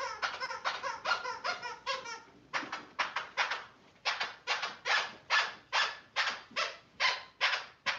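Golden retriever puppies crying out in a quick run of high yips. About two and a half seconds in, a steady run of short squeaks begins, about two and a half a second, and keeps on.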